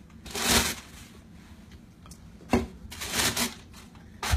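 Cloth rustling in several short bursts as a towel and swaddling blanket are handled close to the microphone, with a sharp knock near the end.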